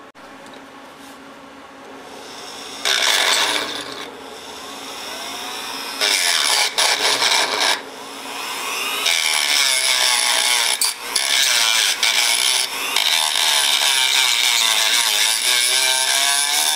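Dremel rotary tool with a small abrasive cut-off wheel lightly grinding the edge of a Briggs & Stratton engine flywheel to roughen the metal for epoxy. It touches in short passes about three and six seconds in, then grinds steadily from about nine seconds, its whine wavering as it is pressed against the metal.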